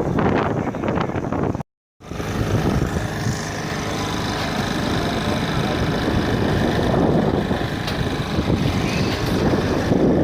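Steady mechanical running noise, like an engine or vehicle, with a sudden silent gap about two seconds in where the recording breaks.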